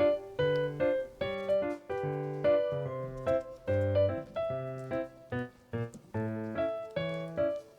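Background music: a bouncy piano tune with a bass line, plucked notes at an even beat.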